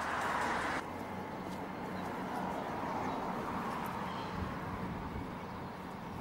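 Outdoor background of steady road-traffic noise, a continuous hiss with a faint low hum. It drops abruptly in level about a second in, then carries on more quietly.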